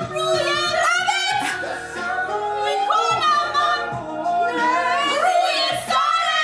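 Women's voices singing a melody, with long held notes that glide and waver.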